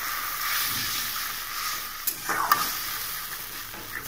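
Mustard paste frying with onions in a steel kadai, sizzling steadily as a spatula stirs and scrapes it. A few sharper scrapes come about halfway through.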